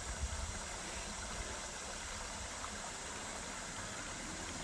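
Steady wash of running water from the water slide's channel and pools, with a low rumble underneath.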